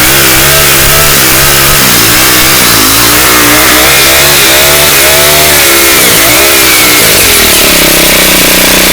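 Ryobi four-cycle string trimmer engine running loud, its pitch rising and falling again and again as the throttle is worked, then holding steadier near the end. It is running well after priming and half choke.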